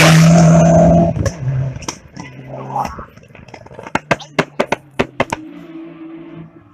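A rally car's engine at high revs as it passes and pulls away, dropping off after about a second. Then quieter voices and a quick run of sharp clicks about four to five seconds in.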